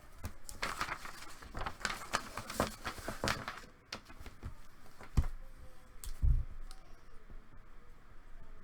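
Trading cards and their packaging handled by hand: a few seconds of scratchy rustling and sliding, then a sharp click about five seconds in and a dull thump a second later.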